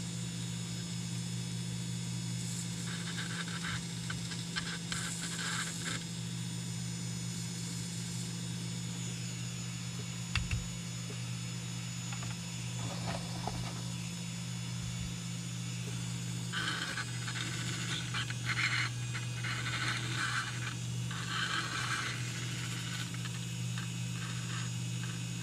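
Small electric motor of a Heljan Class 35 Hymek OO-gauge model locomotive running steadily on bench power through crocodile clips, a steady low hum, now running smoothly with the grease and weathering powder cleared from its wheels. Light scraping and rattling of the bogie and wheels come and go a few seconds in and again through the second half, with one short knock about ten seconds in.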